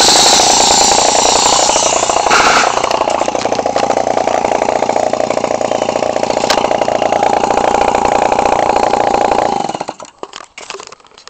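Echo 20cc two-stroke string-trimmer engine, converted to an RC airplane engine, running steadily while it drives a propeller on a test stand. Its pitch wavers briefly about two seconds in, and the sound stops abruptly near the end.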